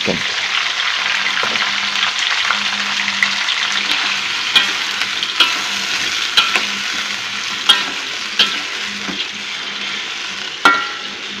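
Pre-boiled chicken pieces sizzling as they fry in hot oil with garlic and ginger in a metal wok. The sizzle is steady and eases slightly toward the end. A metal spatula scrapes and knocks against the wok about six times while stirring.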